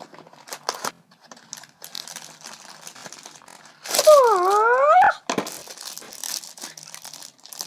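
Plastic packaging crinkling and tearing as it is handled and opened, in many small crackles. Near the middle, the loudest sound is a pitched squeal about a second long that dips and then rises.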